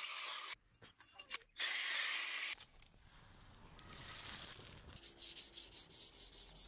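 Quick rhythmic rubbing strokes of a hand-held abrasive worked along a steel cleaver blade, about four strokes a second, in the last couple of seconds. Earlier there is a loud burst of hissing noise about a second and a half in, lasting about a second.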